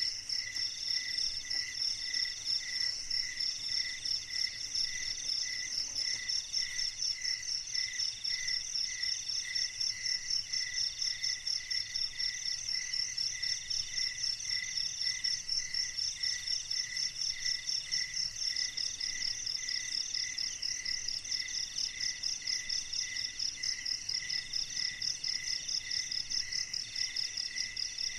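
Chorus of night insects calling together. A fast, steady, high trill is the loudest. Under it, a lower call pulses about twice a second, and a third call comes in repeated phrases about a second long with short gaps.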